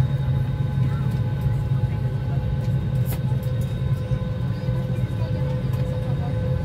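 Steady low cabin hum of an airliner parked at the gate, with thin steady tones above it, typical of the cabin ventilation running before the engines start. A faint murmur of passengers sits underneath.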